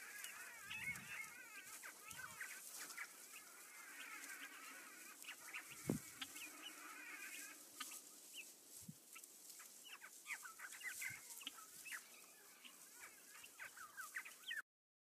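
Bald eagles calling: many faint, high, chattering calls overlapping. One low thump comes about six seconds in, and the sound cuts off suddenly near the end.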